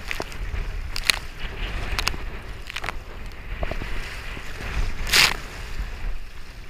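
Sit-on-top kayak paddled through choppy swell: water splashing over the bow and against the paddle in a series of sharp slaps, with wind rumbling on the action camera's microphone. The biggest splash, about five seconds in, is the loudest.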